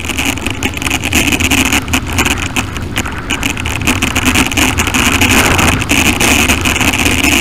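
Bicycle being ridden over a rough trail: a steady rushing noise with frequent clatter and knocks as the bike jolts over the ground.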